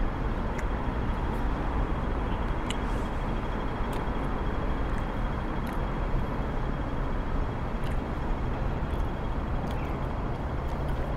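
Steady outdoor background rumble, like distant traffic, with a faint constant high-pitched tone and a few small scattered clicks.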